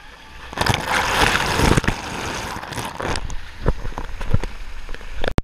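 Water splashing and sloshing right against an action camera held at the water surface, loud for a couple of seconds, then a few knocks of the camera being handled as it comes out of the water.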